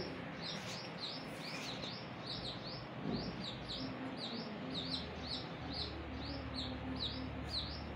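Baby chick peeping over and over: short, high, falling peeps, about two or three a second.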